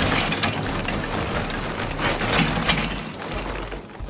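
Big K lumpwood charcoal pouring out of its paper sack into a kamado grill's firebox and wire charcoal basket: a continuous clatter of lumps knocking together with the rustle of the sack, easing off briefly just before the end.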